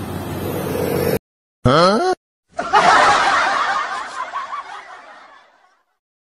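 Road traffic noise cuts off abruptly about a second in. A short rising, wavering cartoon whistle effect follows, then a snickering laugh sound effect that fades away.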